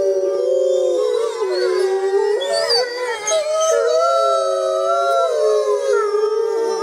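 A pack of wolves howling in chorus: several long, overlapping howls, each gliding up and down in pitch, with no break.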